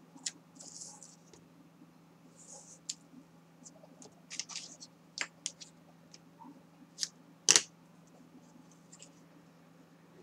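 Double-sided tape being pulled off its roll in short hissing strips and pressed along the edge of kraft cardstock, among light clicks and snaps of the tape and roll being handled. One sharper knock about seven and a half seconds in.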